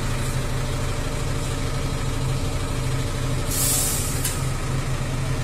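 Fire truck's diesel engine running steadily at idle. A short, sharp hiss comes about three and a half seconds in, with a fainter one just after.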